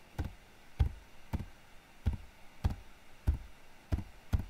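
Computer keyboard keys pressed one at a time in slow, even typing: eight separate knocking keystrokes, about one every 0.6 s, each with a dull low thump.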